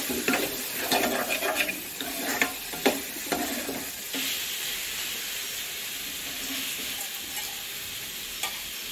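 Food sizzling in hot oil in a pan, with a spoon stirring and scraping through the first few seconds, then a steady sizzle.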